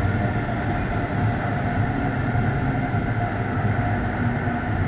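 DB Class 101 three-phase electric locomotive braking, heard from the first coach behind it: steady running noise with several humming tones from its traction drive.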